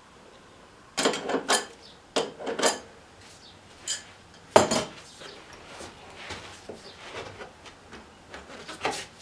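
Metal clanks and clinks as a motorcycle's rear wheel, axle and chain hardware are worked loose by hand. A few sharp clanks come in the first five seconds, the loudest about halfway. Softer scraping and rubbing follow, with one more clank near the end.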